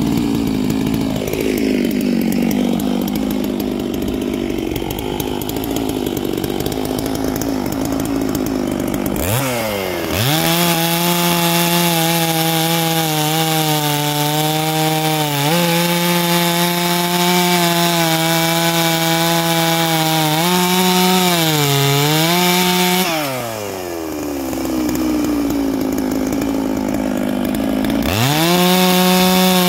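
Neo-tec NS892 two-stroke chainsaw idling, then revved to full throttle about nine seconds in and cutting through a large log, the engine pitch holding steady under load with a brief dip around twenty seconds. It drops back to idle near the end, then revs up again for the next cut.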